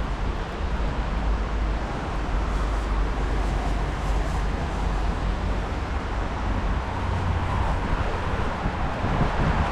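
City street noise: a steady wash of road traffic, with wind rumbling on the microphone. It swells a little near the end.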